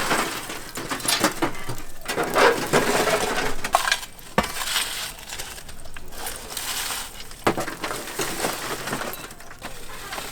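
Glassware clinking and knocking, with scattered clatter and a couple of sharp clinks.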